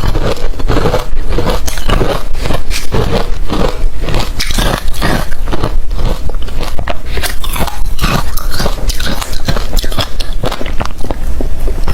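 Close-miked biting and chewing of hard refrozen crushed ice: a continuous run of sharp crunches, several a second.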